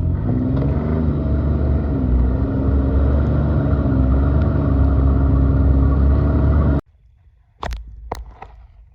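Snowmobile engine running steadily under way, its pitch dipping briefly about a second in. It stops abruptly about seven seconds in, followed by a few sharp knocks.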